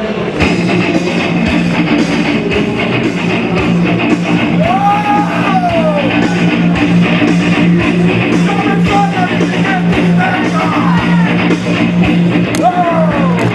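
Rock entrance music for a wrestler, with electric guitar over a steady beat and a low, sustained bass. A lead part slides up and down in pitch a few times.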